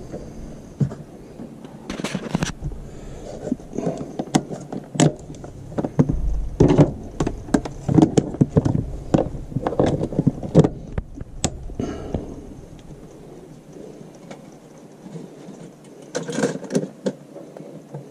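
Clicks, knocks and rustling of hands handling a pop-up electric toaster and its power cable, loading the bread and switching it on. A busy run of knocks gives way to a quieter spell, then another cluster of knocks comes near the end.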